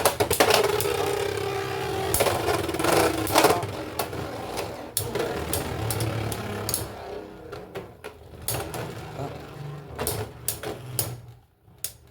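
Beyblade X tops, one with a 3D-printed bit, spinning and clashing in a plastic stadium. A spinning whine falls slowly in pitch over the first few seconds, with rapid clicks and knocks of the tops striking each other and the stadium wall. The noise thins out and fades near the end as the tops slow.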